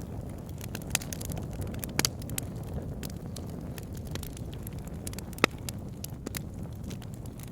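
Wood fire burning in a log burner: a steady low rush of flame with irregular crackles and pops of burning logs, the sharpest pop about five and a half seconds in.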